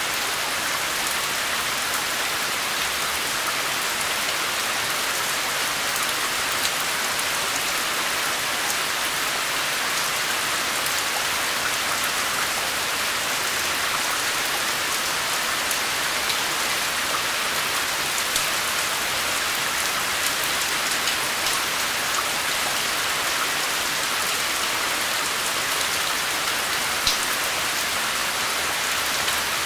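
Steady, even rain falling, a dense hiss with scattered individual drops ticking through it.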